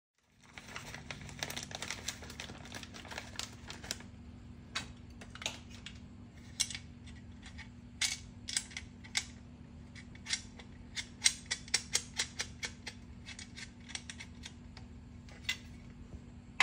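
Sharp clicks and metallic taps from hand tools and metal seat-bracket parts being worked, some in quick runs, over a steady low hum.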